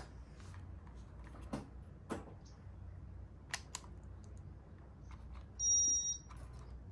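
A low steady hum with scattered sharp clicks, then a short electronic beep of two high pitches, lasting about half a second, which is the loudest sound.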